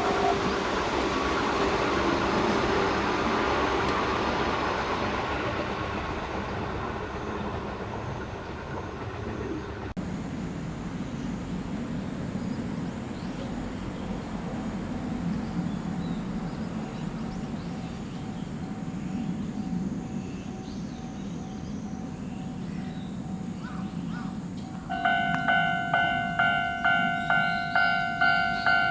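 A train running over a level crossing, its rumble fading away over the first several seconds. Near the end a Japanese level-crossing warning bell starts up, ringing about twice a second.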